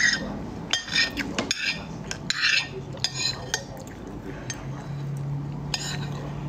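A metal spoon and fork scrape and clink against a ceramic plate, pushing together the last of the fried rice. There are several sharp strokes in the first few seconds, then lighter scraping.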